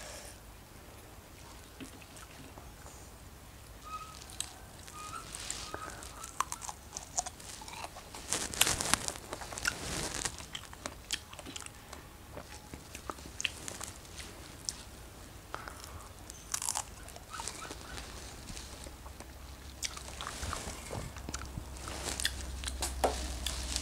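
Fresh strawberries being bitten and chewed close to the microphone: wet, crunchy bites and chewing, heaviest about a third of the way in and again near the end.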